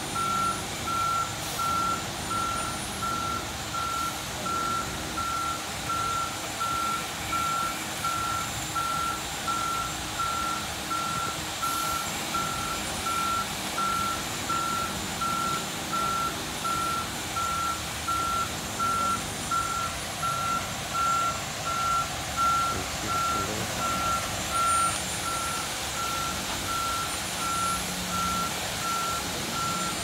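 Concrete mixer truck's backup alarm beeping steadily, about one beep a second, over the truck's engine running while it pours concrete.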